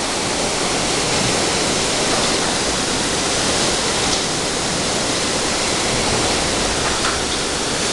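Storm of heavy rain and strong wind lashing trees: a steady, dense rush, with a few faint ticks.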